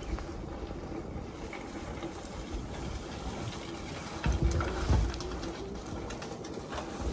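Low cooing of a bird, with a couple of low thumps about four and five seconds in.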